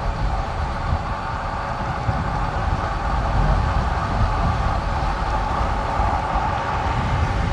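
Wind buffeting the helmet- or bike-mounted microphone and tyre noise on tarmac during a downhill run on a bicycle: a steady rushing roar with a heavy low rumble.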